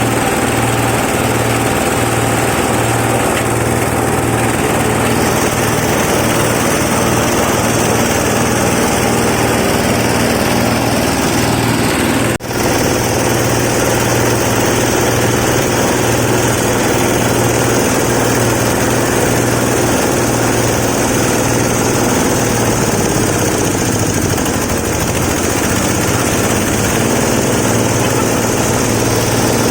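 FFC 15 disk mill flour grinder running steadily with its drive motor, a loud continuous machine drone with a low pulsing hum; the sound briefly drops out about twelve seconds in.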